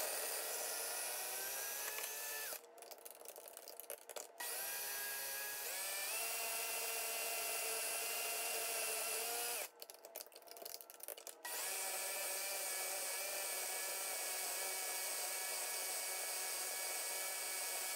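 Ninja Auto IQ blender with its food processor attachment running, processing frozen berries into nice cream: a steady motor whine that steps up in pitch as the speed is raised, and drops out twice for a second or two.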